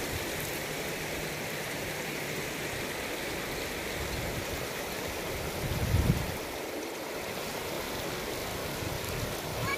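Shallow river rushing and splashing over stones and rapids, a steady rush of water. A brief low bump, the loudest moment, comes about six seconds in.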